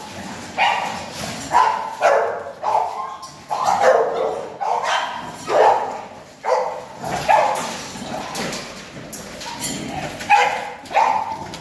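Excited dog barking and yelping over and over, about once a second.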